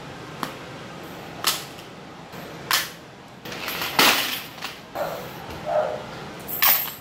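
Objects being handled and packed into a fabric shoulder bag: a string of scattered knocks, clicks and rustles, some short and sharp, with a longer rustle about four seconds in.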